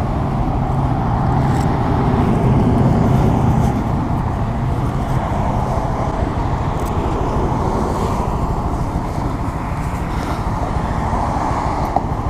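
A 2017 Honda Grom's small single-cylinder engine running steadily, a continuous low hum with no breaks.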